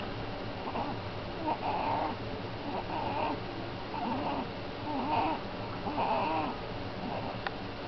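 Young infant cooing: about half a dozen short, arching vocal sounds, roughly one a second.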